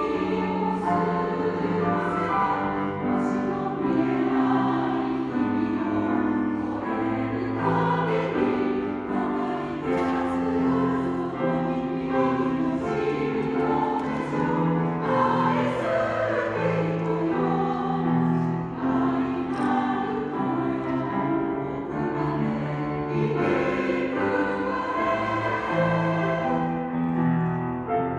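Choir singing a Japanese choral song with piano accompaniment; many voices hold sustained notes that move in steps from phrase to phrase.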